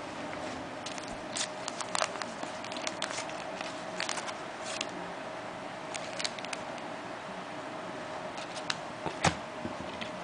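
Trading cards being handled: scattered light clicks and rustles over a steady faint hum, with a sharper tap about nine seconds in.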